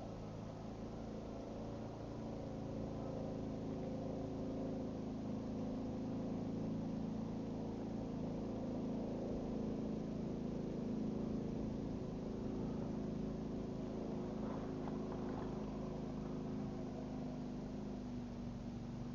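An engine running at a steady speed: a constant hum with several held tones, growing a little louder a few seconds in.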